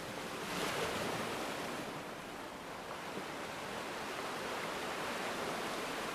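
Ocean surf washing onto a shore, a steady hiss of waves that swells briefly about a second in.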